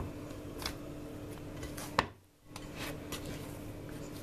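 Hands kneading soft yeast dough in a ceramic bowl: soft rubbing and pressing with faint ticks of fingers on the bowl. A sharp click about halfway through is followed by a short break in the sound.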